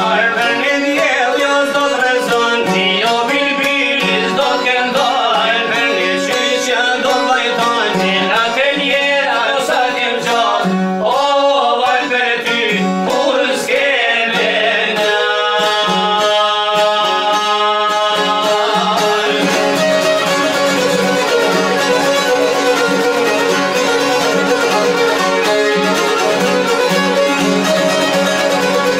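Albanian folk song played on çifteli and other long-necked plucked lutes with a violin. A male voice sings over the first half, then the instruments carry on alone.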